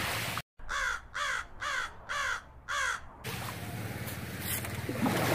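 A crow cawing five times in quick, even succession, a little under two caws a second, with near silence between the caws.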